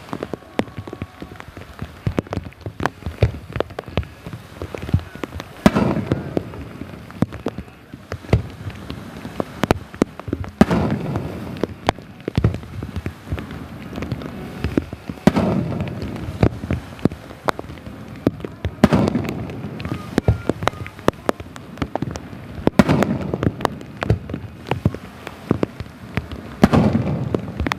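Aerial fireworks shells bursting in a display, six big booms each trailing off in a low rumble, about every four seconds. Many sharp pops and crackles run between them, in heavy rain.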